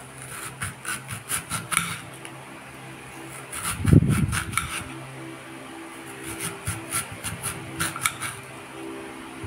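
Knife slicing an onion on a cutting board: three runs of quick strokes, about four or five a second, with one heavier thud about four seconds in. A steady low hum sits underneath.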